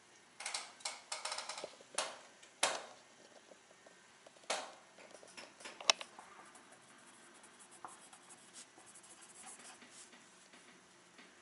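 Pencil writing on a sheet of paper on a wooden tabletop: short scratchy strokes, loudest in the first three seconds, a sharp click about six seconds in, then fainter, lighter scratching.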